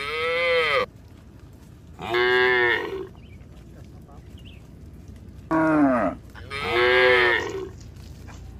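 Cattle in a walking herd mooing: four short calls, each under a second, the pitch rising and falling within each call.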